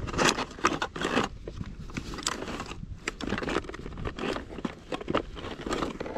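A hand rummaging in a fabric tackle bag, rustling the bag and clattering the plastic tackle boxes inside, with irregular clicks and knocks.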